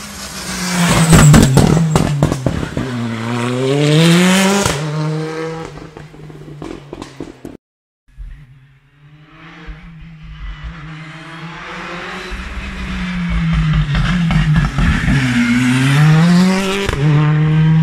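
Hyundai i20 R5 rally car's turbocharged four-cylinder engine revving hard as it drives past close by. The pitch climbs with acceleration and dips at each gear change or lift-off, with sharp exhaust crackles. The sound cuts out for a moment about eight seconds in, then a second pass builds as the car approaches and accelerates by near the end.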